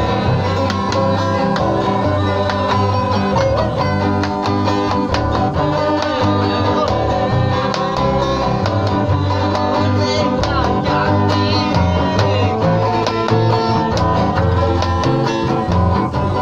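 Several guitars played together live in an acoustic punk jam: steady strummed chords over strong, blocky low notes, without a pause.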